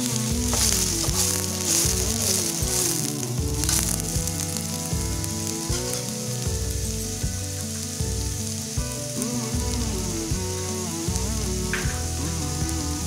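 Diced onions sizzling as they fry in hot oil in a stainless steel kadai. A spatula scrapes and knocks against the pan during the first few seconds of stirring, then the frying goes on alone.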